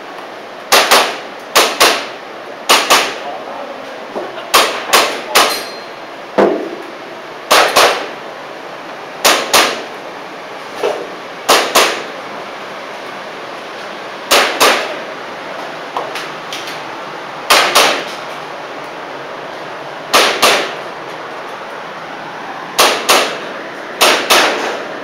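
Airsoft pistol firing in quick pairs of shots, double taps about a fifth of a second apart, with a dozen or so pairs spaced one to three seconds apart.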